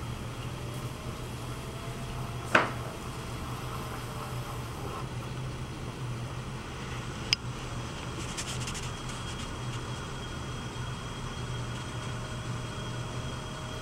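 Electric potter's wheel spinning with a steady low hum while a large clay pitcher is thrown on it. A sharp knock comes about two and a half seconds in, and a shorter click about seven seconds in.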